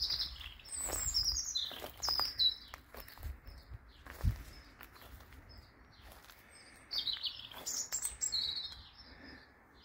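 A songbird singing quick, high-pitched twittering phrases, one over the first few seconds and another near the end. A single low thump comes a little after four seconds in.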